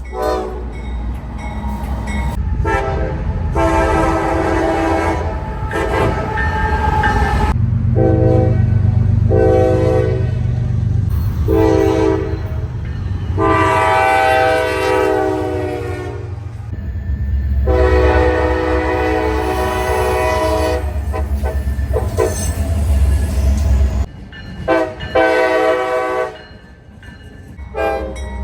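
Diesel locomotive air horn sounded in a long series of short and long blasts, a horn show, over the steady low rumble of the passing train.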